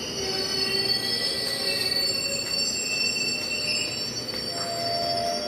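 Steel train wheels squealing against the rails as a train moves through the station: several high-pitched tones, held and shifting, over a low rumble.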